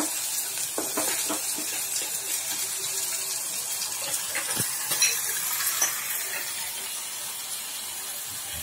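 Onion, garlic and ginger paste sizzling steadily as it fries in mustard oil in a pan, with a metal spatula stirring it and a few short scrapes and taps against the pan.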